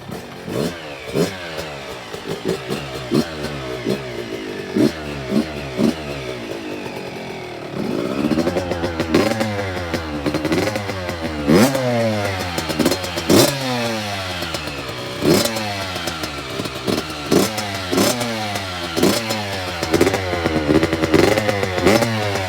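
Yamaha YZ65 single-cylinder two-stroke engine with its stock exhaust, idling and revved in quick throttle blips. About eight seconds in it gets louder, with longer revs that rise and fall every second or two.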